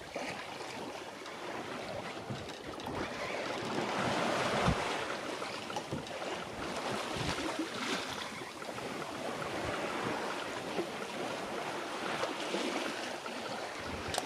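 Sea waves washing and wind buffeting the microphone aboard a sailing yacht under way, swelling and easing, with one dull thump about five seconds in.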